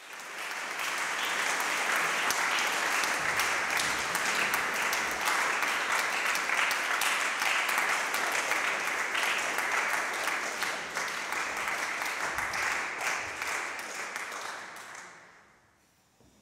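Concert audience applauding, a dense patter of many hands clapping that dies away near the end.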